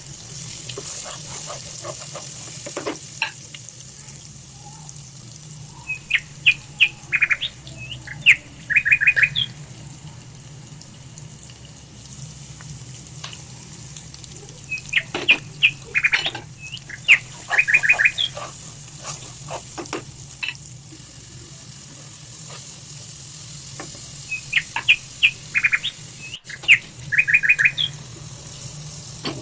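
Bird-like chirping in quick runs of short high notes, one phrase about every nine seconds, over a steady hiss.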